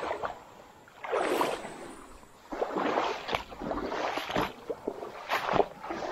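Footsteps wading through shallow creek water, a slosh and splash with each stride, roughly one every second or so.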